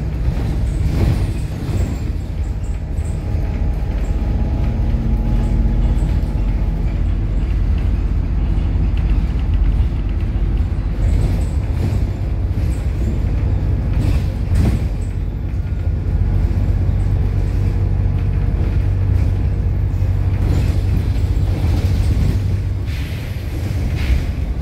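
Bus engine running with a steady low road rumble, heard from inside the passenger cabin, with a few brief knocks and rattles.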